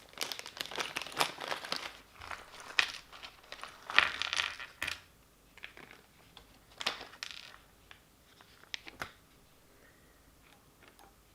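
Rustling and small clicks from hands handling and sorting the small parts of an RC car's differential on a table. The noise comes in bursts through the first five seconds and again around seven and nine seconds.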